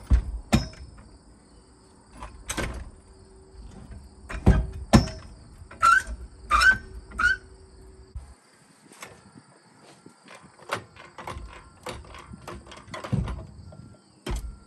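Irregular sharp metal knocks and clanks as a trailer torsion axle with its hub and brake drum is shifted into position on a floor jack under the camper frame, with insects chirping steadily in the background.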